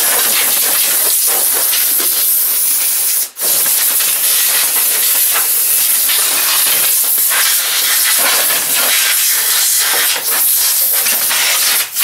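Compressed-air blow gun blowing grass and debris out of a zero-turn mower: a loud, steady hiss that breaks off briefly about three seconds in and again near the end.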